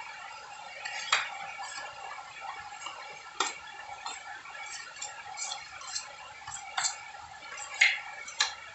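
Metal putty knife scraping and clinking against a wider knife as wall putty is worked and wiped between the two blades: scattered sharp clinks, the loudest near the end, over a steady background hum.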